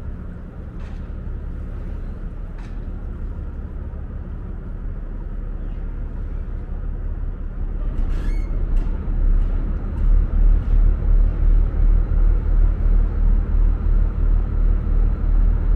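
Ferry's engines running with a steady low drone. It grows louder about halfway through and takes on a beat of about two pulses a second, with a sharp clank just before.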